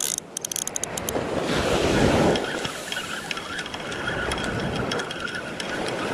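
Small surf breaking and washing up the sand, swelling about two seconds in, with wind on the microphone. A quick run of clicks in the first second and fainter ticking after, from the fishing reel being worked with a fish on the line.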